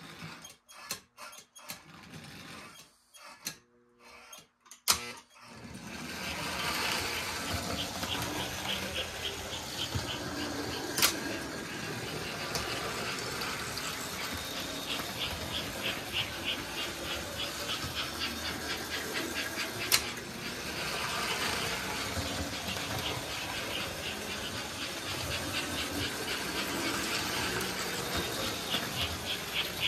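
American Flyer toy steam locomotive running on its track: a steady whirring motor with wheels clattering in a rapid ticking rhythm. It begins with a few scattered clicks, the running sound comes up about six seconds in, and two sharp clicks stand out partway through.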